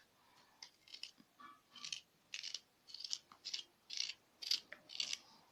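Knife slicing a fresh bell pepper into thin strips, a steady series of short crisp cuts about two a second.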